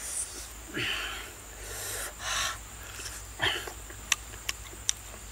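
A man eating cooked squid with his hands: mouth noises of chewing, with three short, noisy breaths in the first few seconds, then a few sharp smacking clicks near the end.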